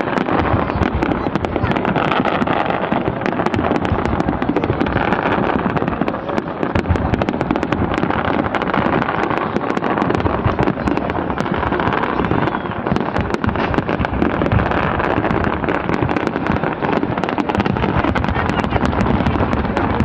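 Fireworks display going off in a dense, continuous barrage of bangs and crackles, heard through a phone's microphone, with crowd voices underneath.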